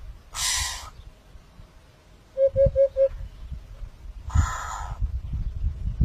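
Eurasian hoopoe calling: one quick series of four evenly spaced low hoots, 'oop-oop-oop-oop', a little before halfway. Two short bursts of hissing noise come near the start and a little past halfway, over a low rumble.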